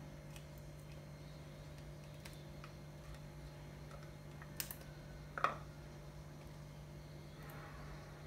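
Faint light clicks and taps of kitchenware being handled over a pot on the stove, with one louder clink that rings briefly about five and a half seconds in, over a steady low hum.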